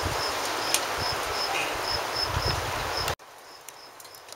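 Wind buffeting the microphone, with a cricket chirping steadily at about four chirps a second. About three seconds in, the wind noise cuts off abruptly and the cricket chirps carry on more faintly.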